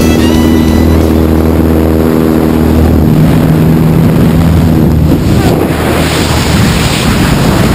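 A small propeller plane's engine drones steadily, with wind rushing past its open door. About five seconds in the engine fades, leaving the loud rush of freefall wind buffeting the microphone as the tandem pair drops from the aircraft.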